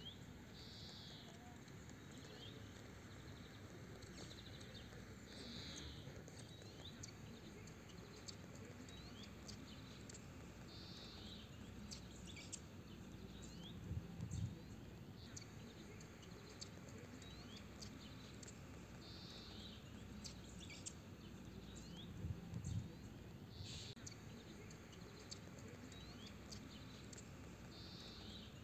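Faint outdoor ambience with small birds chirping in short high calls throughout, one call repeating about every five seconds. Two brief low thumps stand out, one about halfway through and another a little past three-quarters.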